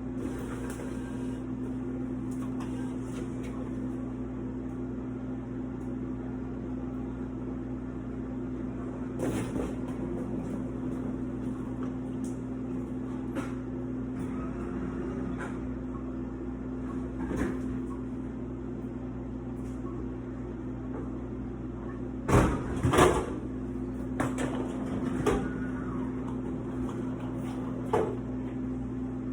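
Beverage vending machine humming steadily, with scattered clunks and knocks; the loudest, two knocks close together, come about 22 to 23 seconds in.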